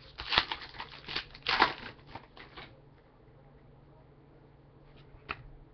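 Panini Contenders basketball card pack wrapper crinkling and tearing open in a quick run of sharp rustles over the first two to three seconds. After that, cards are handled quietly, with a single click near the end.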